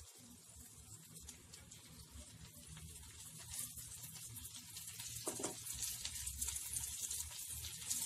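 Marinated chicken pieces sizzling and crackling in hot melted butter in a nonstick frying pan. The sizzle grows louder as more pieces are laid in.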